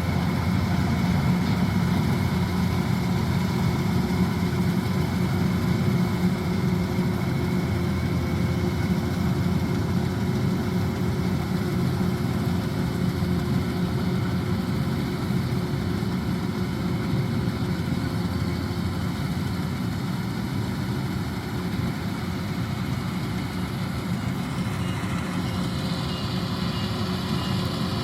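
Kubota DC-105X combine harvester's diesel engine running steadily at a constant speed.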